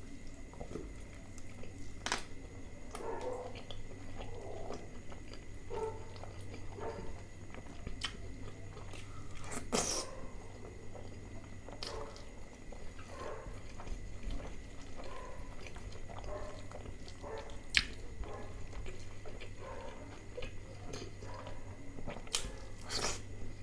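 Close-miked chewing and wet mouth sounds of a person eating butter chicken with naan by hand, with irregular smacks and a few sharper clicks. A steady low hum runs underneath.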